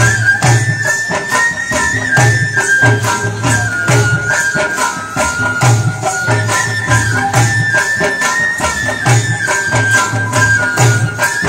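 Rajasthani Holi folk music: large chang frame drums beating a steady rhythm with jingling on each stroke, under a high flute melody.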